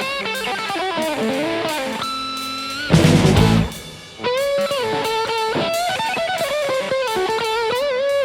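Rock band playing an instrumental passage. An electric lead guitar plays a melody of bent notes with vibrato over bass and drums. One note is held about two seconds in, and a loud hit from the whole band comes about three seconds in.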